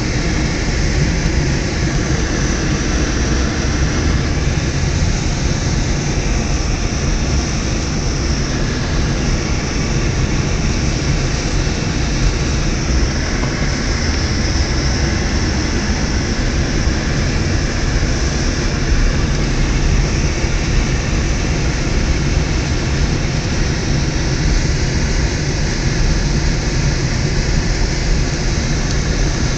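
Car being driven on a snow-covered road, heard from inside the cabin: a steady rumble of engine and tyre noise.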